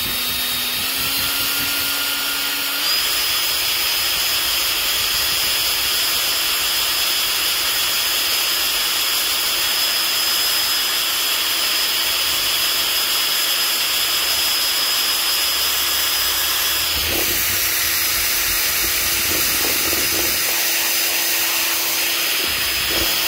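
Electric drill spinning a paint-mixing paddle in a can of varnish, mixing in wood stain: a steady motor whine that steps up in speed twice in the first few seconds and drops slightly in pitch about 17 seconds in. A few light knocks come around then and again near the end.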